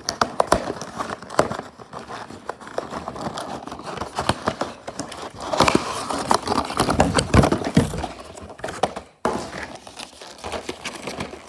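Toy packaging being ripped open by hand: a continuous crinkling and tearing full of sharp, irregular crackles, busiest and loudest about halfway through.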